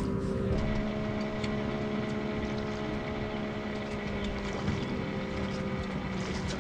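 Minn Kota electric trolling motor running, a steady hum of several held tones, with a few faint clicks over it.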